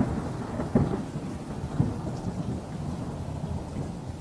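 Low rumbling noise with a few dull thumps, about a second in and again near two seconds, slowly fading: handling and wind noise on a handheld camera's microphone carried at a walking pace.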